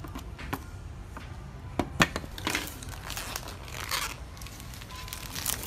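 Crinkling and rustling of packaging as skateboard parts are handled, with a few sharp clicks and light knocks, the loudest about two seconds in.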